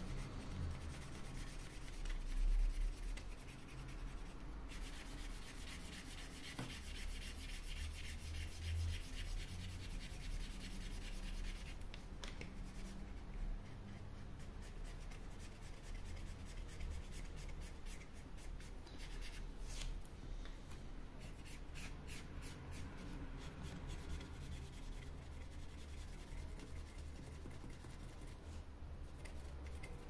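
Dual-tip felt marker rubbed back and forth across a wooden panel in runs of quick, scratchy strokes, with a dull bump about two and a half seconds in.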